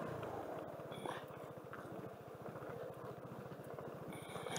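Suzuki Burgman scooter's engine running at low revs with a fast, even pulsing, quiet as it rolls slowly on loose gravel. A brief high squeak sounds about a second in and again near the end.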